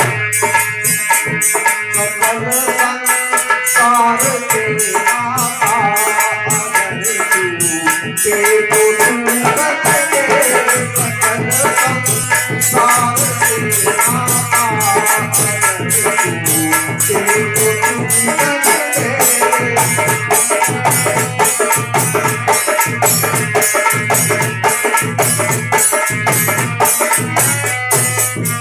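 Folk music led by a dholak drum played in a fast, steady rhythm, with repeated deep bass strokes under a wavering melody and a jingling rattle.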